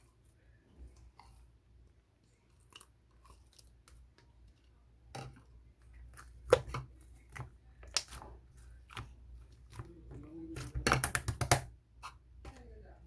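Slime being pressed and stretched by hand, giving scattered wet clicks and pops, with a quick run of sticky clicks near the end.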